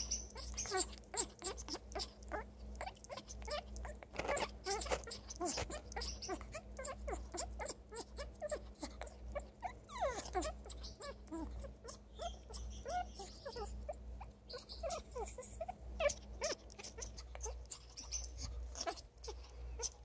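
African grey parrot making her soft contented sound: a busy string of rapid clicks mixed with short squeaky calls that slide up or down, with one longer falling call about ten seconds in. It is the sound she makes when she is happy and wants affection.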